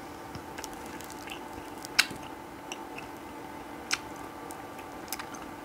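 Someone eating a homemade xylitol hard candy: mouth sounds with a few sharp clicks of the candy, the loudest about two seconds in and again near four seconds.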